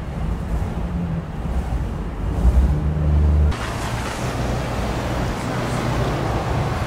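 Street traffic noise: a low vehicle engine rumble, which gives way abruptly about three and a half seconds in to a steady wash of road noise.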